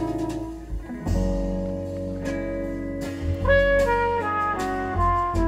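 Recorded music played back through a pair of PS Audio Aspen FR30 floor-standing loudspeakers in a listening room: held melodic notes changing every half second or so over deep bass.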